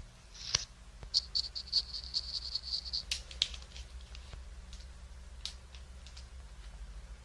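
Close-miked handling of plastic makeup products: small clicks and taps, with a fast run of ticking clicks from about one to three seconds in, then a few scattered clicks.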